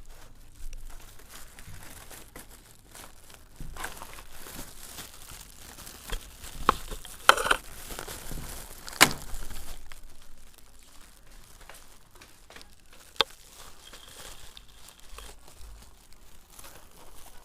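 Plastic packaging crinkling and rustling as it is handled, with irregular sharp crackles, loudest about halfway through.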